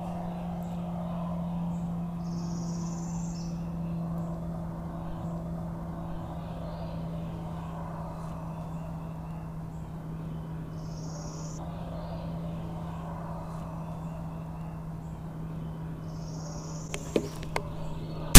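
Woodland ambience: short high bird chirps every several seconds over a faint rapid ticking call and a steady low hum. Near the end come two sharp clicks, and then a shotgun blast right at the close.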